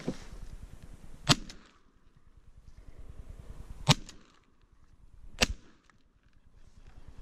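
Three close shotgun shots: the second about two and a half seconds after the first, the third about a second and a half after that.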